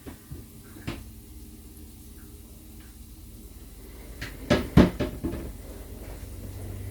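Kitchen clatter: a sharp click about a second in, then a quick run of about five loud knocks over a second, around four and a half seconds in, like a kitchen cupboard door being opened and shut.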